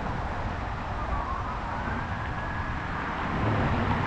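A faint police siren wailing, its pitch gliding up and then holding, over a steady low rumble of street noise.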